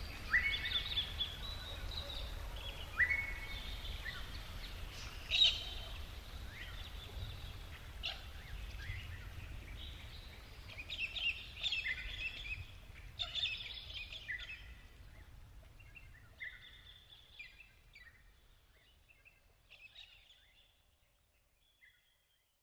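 Birds chirping and calling over a low rumble, with short calls and a few sweeping notes. The sound fades out steadily toward the end.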